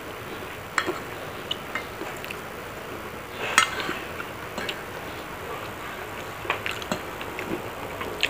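Metal spoon and fork clinking and scraping on a ceramic plate while cutting and scooping fried rice, a scatter of sharp clicks with the loudest about three and a half seconds in. Soft chewing sounds come between the clinks.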